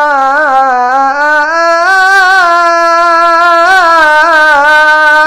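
A man reciting the Quran in melodic tajwid style, holding one long unbroken note in maqam Bayati with a wavering, ornamented pitch that dips and climbs again. It is the drawn-out end of the word "bada'na" ("we began").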